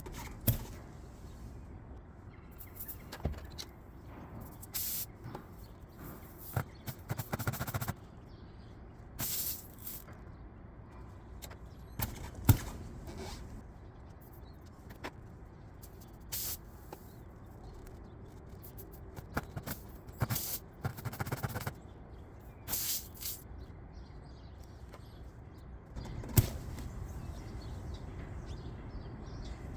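Hand work on a tire with a strip-plug repair kit: irregular clicks, knocks and scrapes, with several short rasping or hissing bursts of about half a second each, the sharpest knocks about half a second in, about halfway through and near the end.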